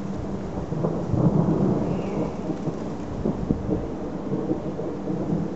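Thunder rumbling: a low roll that builds about a second in and then slowly dies away.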